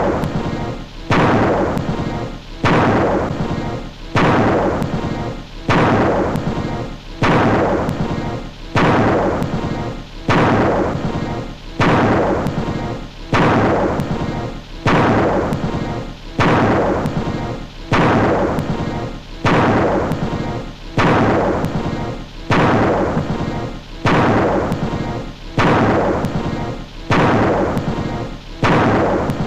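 A cartoon thunderclap with music, a second or so long, looped over and over: each crash starts suddenly and dies away, repeating about every one and a half seconds.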